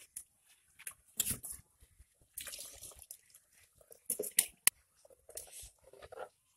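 A spoon stirring and scraping inside an earthenware cooking pot, with irregular crackles from ingredients frying in hot oil. There is one sharp tap about two-thirds of the way in.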